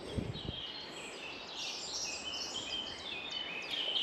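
Woodland songbirds singing over one another: a busy mix of short high chirps and phrases, over a faint steady hiss.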